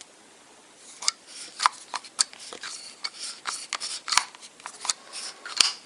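Wheeler F.A.T. screwdriver-style torque wrench being adjusted by hand, its handle pulled and twisted to set the torque: a string of irregular sharp clicks and short scraping rattles.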